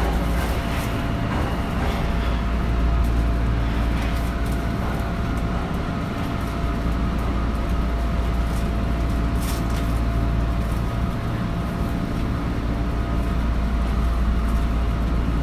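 Tokyo Metro 2000 series subway train standing at the platform with its equipment running: a steady low hum with a thin steady tone above it and a few faint clicks.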